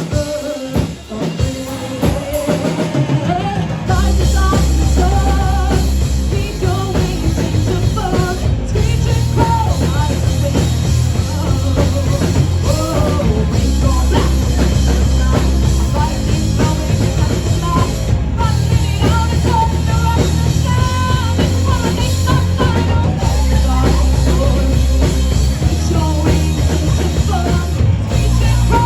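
Live rock band playing with drums, bass and a singer. A sparser opening gives way to the full band coming in loudly about four seconds in, with heavy bass and drums under the vocal.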